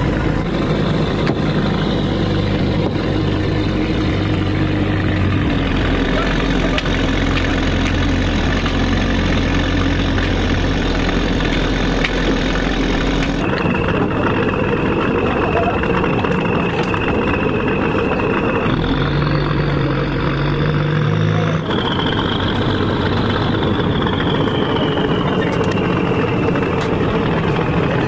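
Fishing trawler's engine running steadily under way, with the rush of water and wind over the deck. The sound shifts abruptly a couple of times, at cuts in the footage, and a thin high whine comes and goes in the second half.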